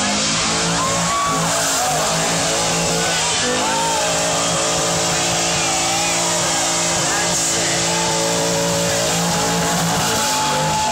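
Ford Mustang GT's 4.6-litre three-valve V8 held at high revs through a burnout and donuts, with the rear tyres squealing as they spin on the pavement. The revs dip and climb again about a third of the way in, then hold steady.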